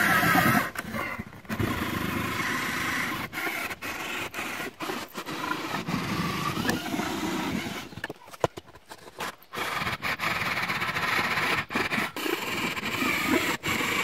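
Cordless drill boring out a switch hole in a boat's dash console, the bit grinding and scraping through the panel. The drill runs weakly on a poor battery and pauses briefly about eight seconds in before starting again.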